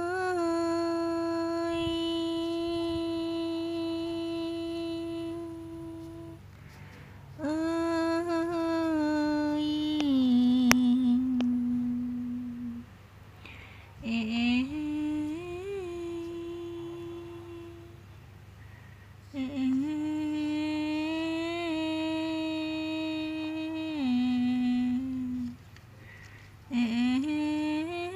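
A person humming a slow lullaby in long held notes, phrase after phrase with short breaks between. There is a single sharp click near the middle.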